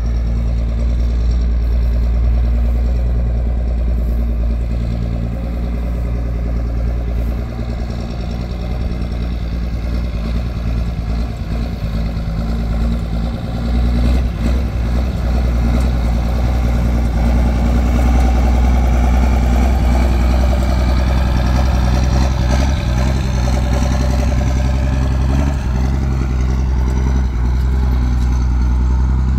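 Ford tandem-axle grain truck's engine running as the truck drives slowly across a yard. It gets louder from about halfway through, with the engine pitch rising and falling a few times.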